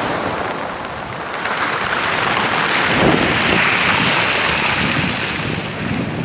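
Sea waves breaking and washing on the shore, one surge swelling up and then easing off, with wind buffeting the microphone.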